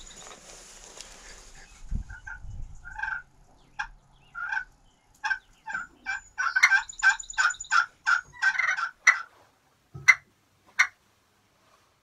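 Hand-worked turkey call sounding a series of short turkey-like notes, spaced at first, then quickening into a rapid run midway, then a few single notes near the end.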